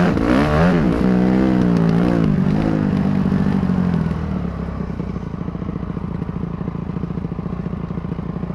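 Motocross dirt bike engine revving up and down as it is ridden over the track, with rushing wind, then easing off about four seconds in and settling to a steady, pulsing idle.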